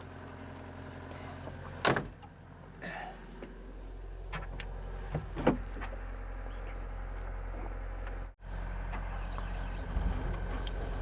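Excavator's diesel engine idling steadily while it warms up in the cold, with two sharp knocks, about 2 and 5 seconds in.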